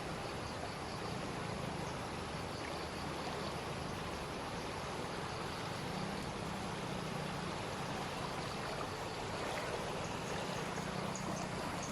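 Steady rushing of flowing floodwater, with a low hum that comes and goes underneath.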